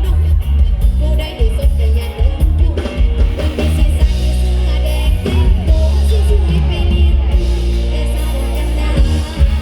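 Loud music with a singer over a heavy, steady bass.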